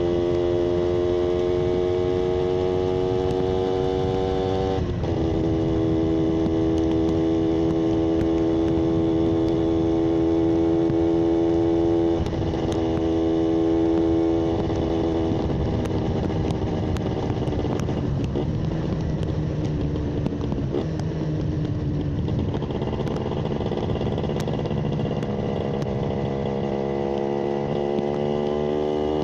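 Yamaha 125ZR's single-cylinder two-stroke engine running at steady high revs, with a brief dip about five seconds in. Past halfway the revs fall away and stay low for several seconds, then climb again near the end.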